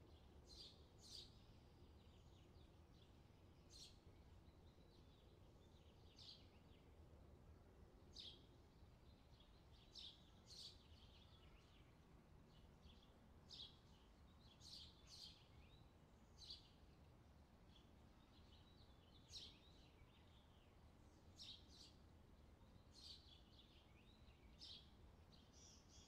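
Faint outdoor summer ambience: birds chirping in short high calls every second or two over a steady low background rumble.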